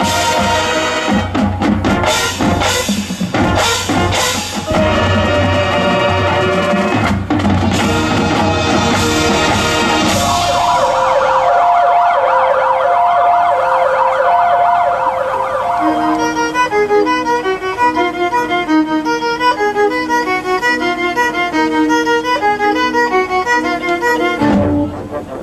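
High school marching band performing: full band with drum hits, then a siren-like figure of two notes alternating slowly, then a quick repeating pattern of short notes over a held low note with a violin.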